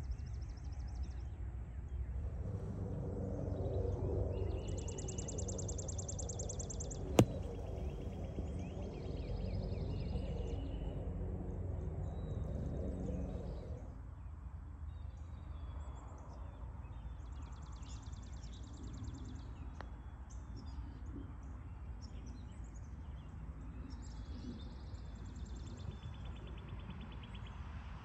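A single sharp crack of a golf club striking the ball about seven seconds in, over repeated birdsong trills and a low outdoor rumble that eases about halfway through.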